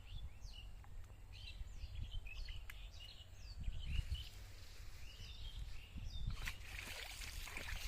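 Birds chirping in many short, quick calls over a low steady rumble. About six and a half seconds in, a broad rushing noise rises and carries on to the end.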